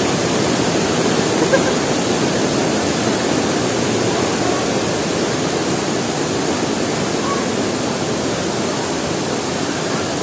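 Waterfall: a steady, loud rush of falling water crashing down.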